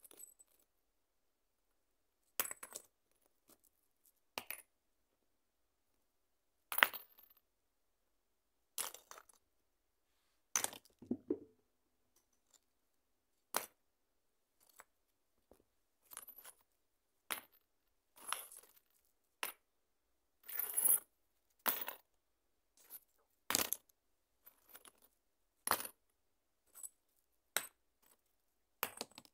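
Stones clicking and clacking against each other in separate sharp knocks, irregularly spaced every second or two with silence between, some struck in quick doubles or short rattling clusters.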